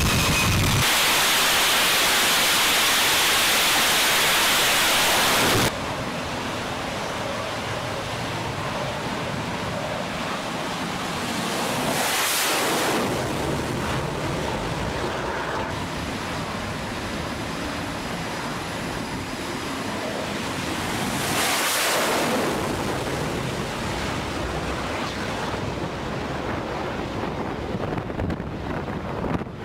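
Twin jet engines of an F/A-18 on the carrier catapult at full power: a loud, steady roar for about five seconds that cuts off abruptly. Then a quieter rush of wind on the microphone over open sea, swelling twice.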